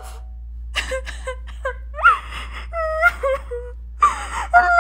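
A girl crying out loud. Short sobbing gasps give way to wavering wails about two seconds in, and a long held wail starts near the end.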